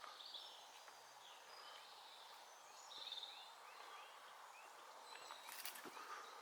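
Faint woodland birdsong over a quiet hiss: a bird gives a run of short, rising chirps with a brief trill midway, and a few sharp clicks sound near the end.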